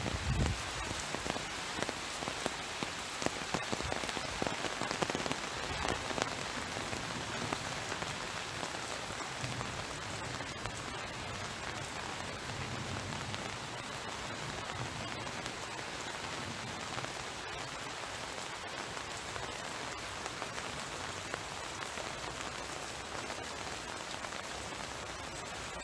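Heavy tropical rain pouring down in a steady, dense patter.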